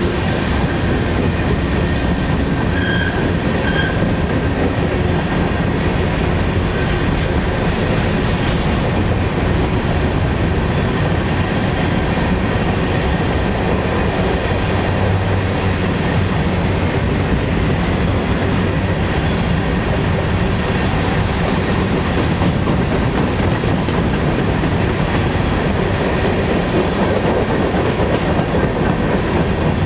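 CSX freight train's covered hopper cars rolling past close by: the steady noise of steel wheels running over the rails, with no break or change in level.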